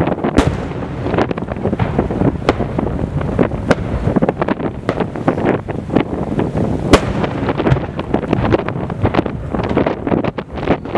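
Fireworks barrage: large aerial shells bursting in quick succession, several bangs a second overlapping into a continuous rumble, with one especially sharp bang about seven seconds in.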